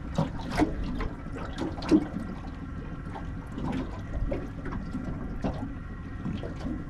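Small waves slapping and gurgling against the aluminium hull of a small drifting dory, with a few sharper slaps in the first two seconds.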